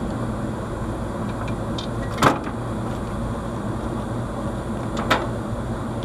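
Steady low mechanical hum of running air-conditioning equipment, with two sharp clicks about three seconds apart.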